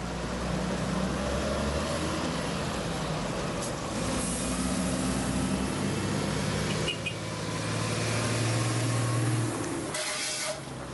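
Trucks in a convoy driving past on a wet road: a steady low engine drone with tyre noise, changing abruptly about seven seconds in and again near the end.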